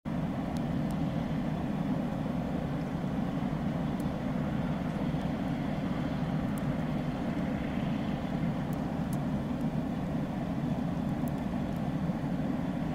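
Steady low rumble of idling vehicle engines, even and unchanging throughout.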